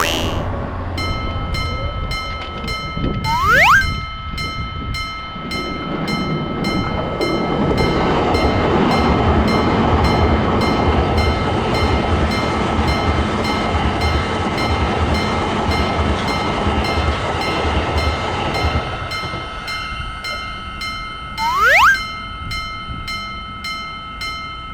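Japanese railroad-crossing alarm bell ringing in a steady clang of about two strikes a second. A train rushes past the crossing, loudest through the middle. A short rising whistle sounds once near the start and once near the end.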